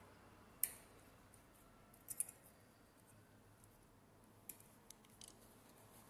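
Small sharp clicks of a lock pick and turning tool working inside a car door lock cylinder: one sharp click about half a second in, a quick pair around two seconds, and a few lighter ones near the end.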